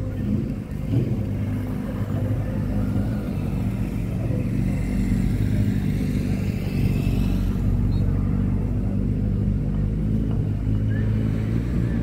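Low, steady hum of a car engine running at an even speed, with a faint whoosh passing through in the middle.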